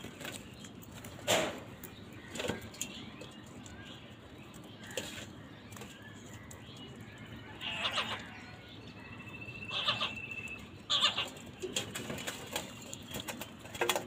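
House crows cawing, short harsh calls a few seconds apart, with small clicks and taps from pecking at food in a steel bowl.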